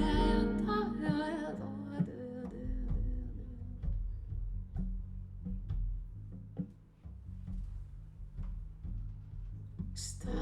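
Recorded music played over TAD loudspeakers driven by Electrocompaniet electronics. A sung line with full backing fades over the first two seconds into a quiet, sparse passage of single struck or plucked notes over a bass line. Near the end the voice and full band come back in loudly.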